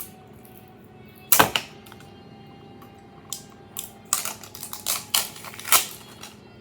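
Sharp clicks and knocks from handling a small sublimation tumbler and its wrapping: a quick cluster about a second in, then a rapid run of clicks in the second half.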